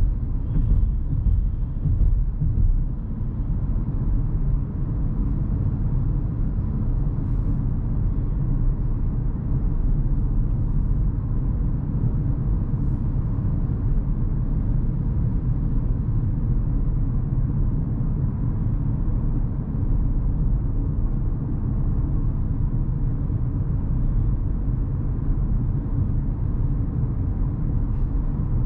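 Cabin noise of a 2023 Hyundai Venue 1.0-litre turbo petrol with DCT cruising at a steady city pace: a steady low rumble of engine and tyres on the road, with no revving or gear changes.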